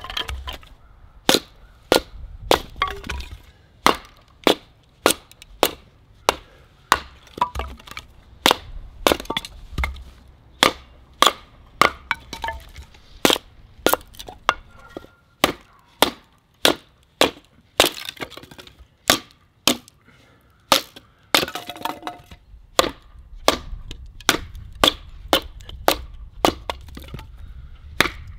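Repeated sharp knocks of a wooden baton striking the spine of a TOPS CUMA Kage short sword, batoning the blade down through firewood to split it, at a steady pace of about two strikes a second.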